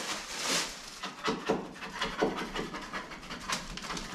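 Wet plastering brush swishing in quick, uneven strokes along the angle between a freshly skimmed wall and the ceiling, cleaning the plaster off the ceiling line.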